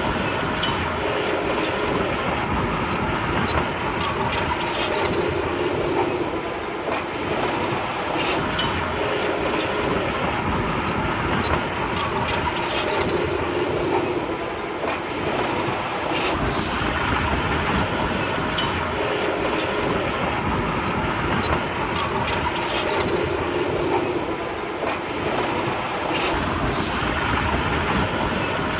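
Komatsu D31P crawler bulldozer working: a steady diesel engine with its steel tracks clanking, with repeated sharp metallic clanks throughout and a slight easing of the noise every several seconds.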